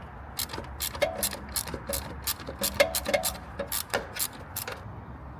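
Hand ratchet with a 6 mm socket clicking, about four clicks a second, as a hose clamp screw on the intake is turned; the clicking stops near the end.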